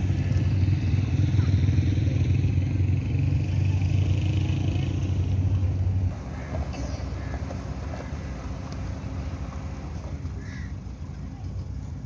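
Motorcycle engine running close by with a steady low rumble that cuts off abruptly about halfway through, leaving a quieter outdoor background with a few faint high chirps.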